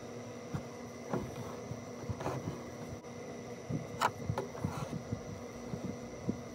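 Embroidery needle and thread being drawn through fabric stretched in a hoop: soft irregular scratches and ticks, with one sharper click about four seconds in, over a faint steady hum.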